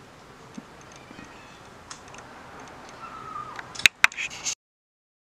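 Quiet room tone with a few faint ticks, then two sharp clicks close together about four seconds in and a brief rustle, after which the sound cuts off abruptly into silence.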